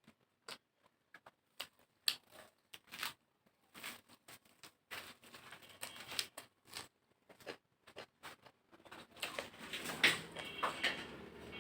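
Close-miked eating sounds: lip smacks, mouth clicks and wet chewing of rice and curry. The smacks are sparse at first and come thick and fast toward the end.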